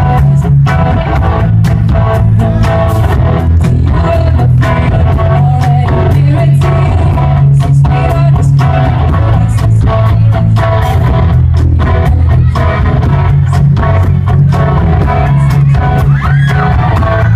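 Live rock band playing loudly, with guitar and singing over a heavy bass and a steady beat of sharp hits.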